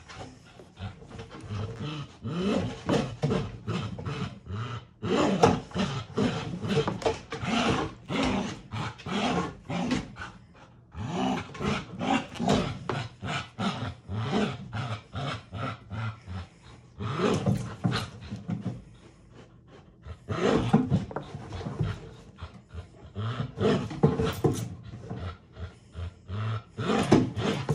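Dog growling with a bite pillow clamped in its mouth, in rough runs of rapid pulses that break off in short pauses between bouts.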